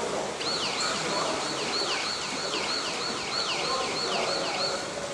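Electronic siren signal: a falling yelp repeated about three times a second for roughly four seconds, starting just after the beginning and stopping near the end, over the steady wash of an indoor pool hall.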